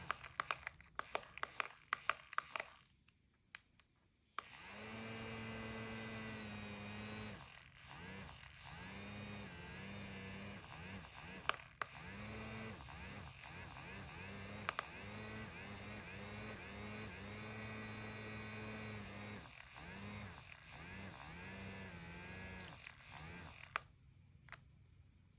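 Electric fan motor: a quick run of clicks, then about four seconds in the motor starts with a steady buzzing hum whose pitch dips and recovers again and again, before it cuts off near the end.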